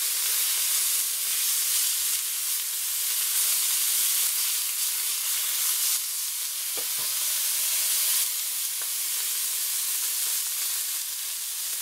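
Beef steaks sizzling in hot rendered sheep fat-tail fat in a roasting pan as they are moved about with a wooden spatula. The sizzle eases a little after about eight seconds.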